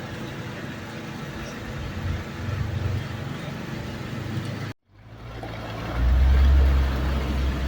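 Heavy vehicle engine running among general work-site noise. The sound cuts out completely for a moment just before five seconds in, then the engine's low note comes back and grows much louder about a second later.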